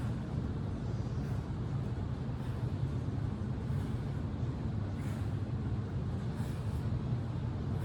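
A steady low hum, with faint breathy puffs about every second or so: the exhales of someone working through V-ups.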